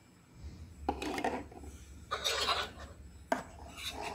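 Hard plastic toy groceries being handled and rummaged in a plastic toy shopping basket: three short scraping rustles and a single sharp knock about three seconds in.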